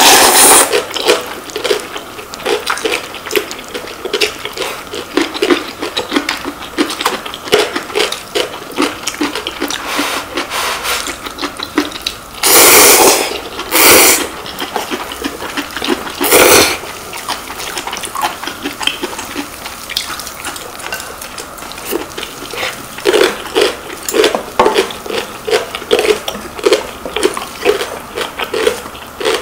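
Close-up eating sounds of ramen: noodles slurped and hot broth sipped from a bowl, with a steady run of chewing between. Three long, loud slurps come around the middle.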